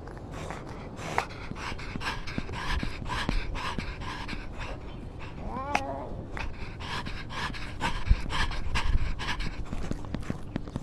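A pet panting quickly, about three breaths a second, with a brief whine about halfway through.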